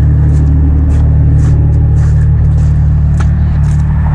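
A motor vehicle's engine idling steadily, a loud low hum with a few faint clicks over it.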